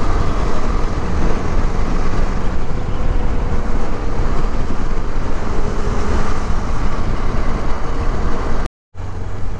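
Wind rushing over the microphone of a moving KTM 250 Adventure motorcycle, with the bike's single-cylinder engine running steadily beneath it. The sound drops out for a moment near the end.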